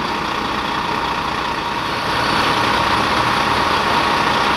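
Diesel engine of a parked fire engine idling close by: a steady, loud engine noise with no break.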